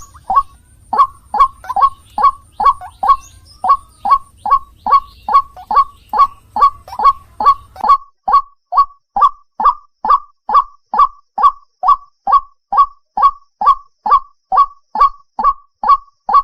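White-breasted waterhen (ruak-ruak) calling over and over: a steady run of identical short, harsh notes, about three a second. A low hum underneath stops about halfway through.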